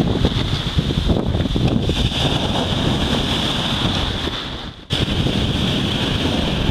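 Sea surf breaking and washing up the shore, with wind buffeting the microphone. The sound drops out for an instant about five seconds in, then a wave bursts into spray right at the microphone.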